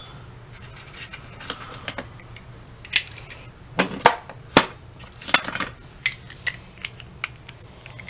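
Wrench and socket clinking and knocking against the metal bolts and plates of a Club Car DS golf cart's rear leaf-spring and axle mount as the nuts are tightened: scattered sharp metallic clicks at uneven intervals, the loudest a few seconds in.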